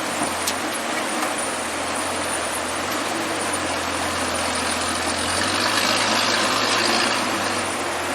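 Soviet ZIL-164 truck's six-cylinder side-valve petrol engine running with a steady low drone. It grows louder about five seconds in, then eases off near the end.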